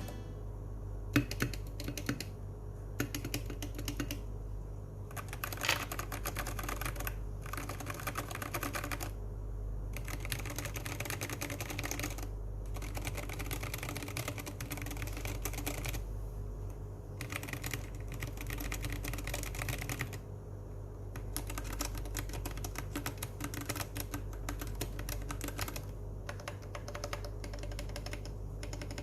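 Typing on a Royal Kludge G68 mechanical keyboard fitted with XDA-profile keycaps: fast runs of key clacks, broken by brief pauses every few seconds.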